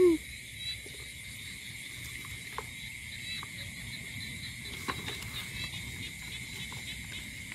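Night chorus of crickets: a steady, unbroken high trill, with a few faint clicks and rustles close by.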